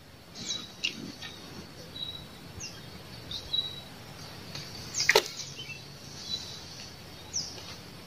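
Small birds chirping in short, high calls, with a few quick falling notes, over a faint steady hiss; a single sharp click about five seconds in.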